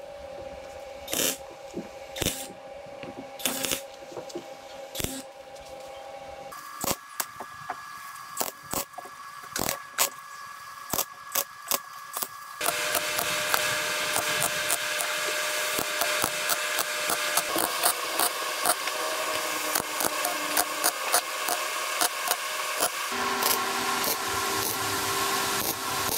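MIG welder laying many short tack and stitch welds along the thin sheet-metal wheelhouse seam, each weld a brief crackling burst, a few a second. About twelve seconds in the bursts get louder and run almost together. The welds are kept short so the thin panel does not burn through.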